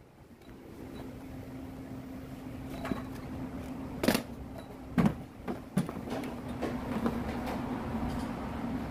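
A steady low machine hum, with three sharp knocks near the middle, each about a second apart.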